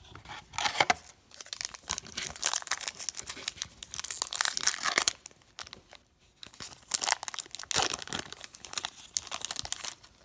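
A foil trading-card pack being torn open, the wrapper crinkling and crackling in several bursts as it is peeled off the stack of cards.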